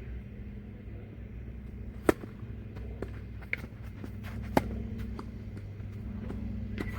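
Tennis ball being hit with rackets and bouncing on the court during a rally: a string of sharp pops, the loudest about two seconds in and again about four and a half seconds in, over a steady low hum.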